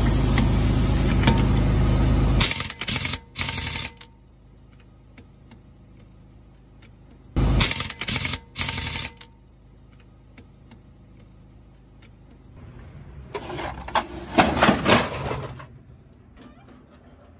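Heavy impact wrench hammering the lug nuts of a truck's aluminum wheel tight: one long run of about two and a half seconds, then short bursts in groups as it goes from nut to nut. Near the end, a stretch of knocking and rattling.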